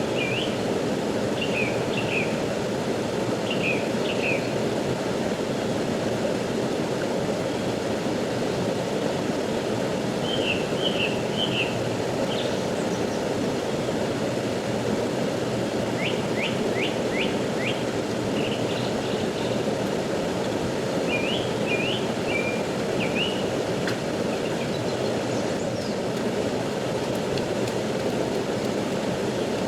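Steady rushing of a fast-flowing stream, with small birds chirping in short bursts every few seconds over it, including a quick run of about five descending notes around the middle.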